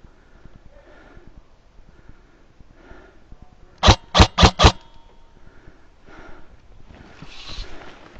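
Airsoft gun firing four quick sharp shots, about four a second, roughly halfway through. A soft rustling noise follows near the end.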